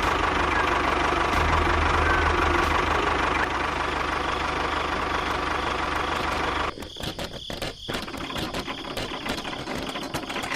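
An engine running steadily with a low hum, cutting off abruptly about two-thirds of the way through, followed by quieter scattered clicks and knocks.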